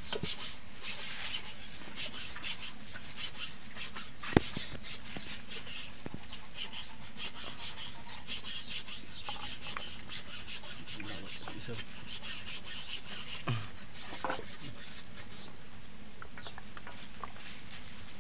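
Steady background noise with many faint crackles and rustles, and one sharp click about four seconds in.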